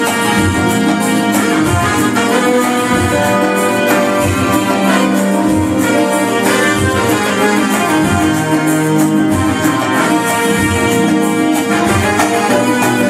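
Live Algerian wedding music played on a Korg Pa-series arranger keyboard: a sustained, brass-style lead melody over a steady low drum beat.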